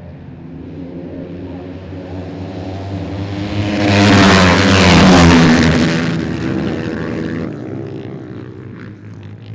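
Ice-racing motorcycles on screw-studded tyres passing close by. The engine sound and a rushing hiss build to a loud peak about four to six seconds in, then drop in pitch and fade as the bikes go away.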